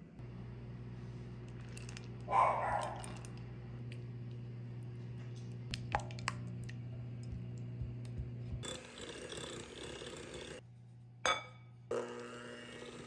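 Electric hand mixer whirring as its beaters work softened butter in a glass bowl, running in two spells near the end. Earlier there is a low steady hum with one brief loud sound about two seconds in and a few light clicks.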